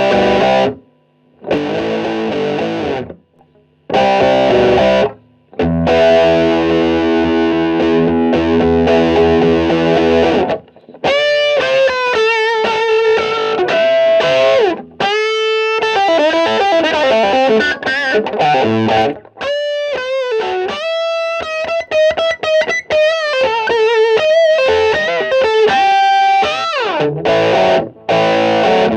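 Distorted electric guitar played through the MOTHER VIVID 3-band EQ. It opens with a few short chord stabs and then held chords, and from about eleven seconds in plays a single-note lead line with bends and slides.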